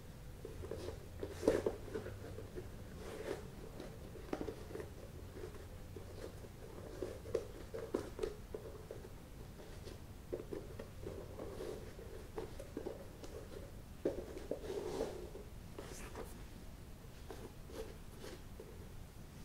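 A white shoelace being threaded and pulled through the eyelets of a Nike Dunk High's leather upper: soft rubbing and rustling of lace on leather, with a few sharper clicks and taps of handling.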